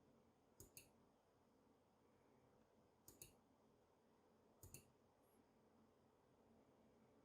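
Three faint keystrokes on a HyperX Alloy Origins Core mechanical keyboard, about a second and a half apart. Each is a quick double click as the key switch goes down and comes back up.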